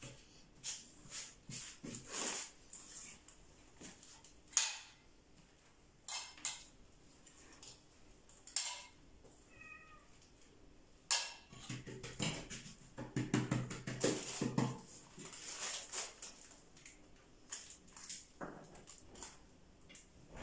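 Light clinks and scrapes of a spoon against a small metal bowl and over thin-stretched feteer dough as melted ghee is spread on it, with a run of sharp clicks and a busier stretch of scraping a little past halfway.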